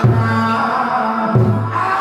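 Tuồng opera accompaniment: a deep drum struck twice, about a second and a half apart, each stroke ringing on low, under a held instrumental melody.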